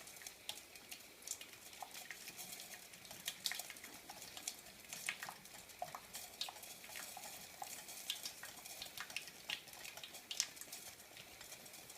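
Esbit coffee maker heating over a stove flame, giving faint, irregular crackling and sizzling ticks, several a second, as the water works up towards the boil.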